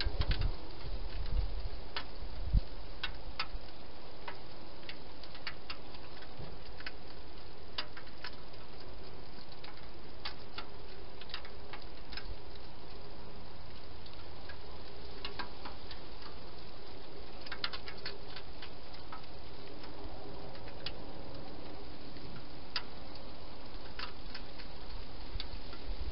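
Wild hedgehog feeding at bowls inside a plastic feeding box: scattered light clicks and ticks of chewing and movement, with a few dull knocks in the first few seconds, over a steady hiss.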